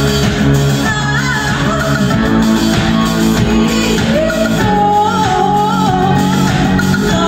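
Live rock band in full song, heard from the audience: a woman's lead vocal over electric guitars, keyboard and drums.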